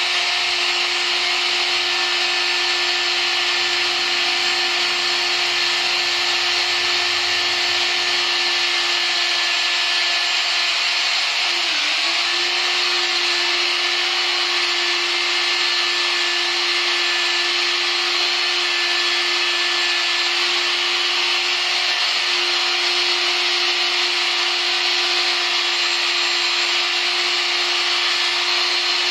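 Corded rotary hammer drill running steadily as it bores into ceramic wall tile, an even motor whine with a grinding hiss. The pitch dips briefly about twelve seconds in, then recovers.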